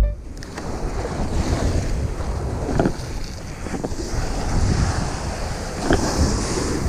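Ocean surf breaking on a beach, with wind buffeting the microphone.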